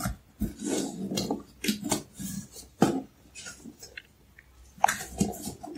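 Cardboard laptop box being handled and worked at: irregular rubbing and scraping of cardboard with a few sharp taps and knocks.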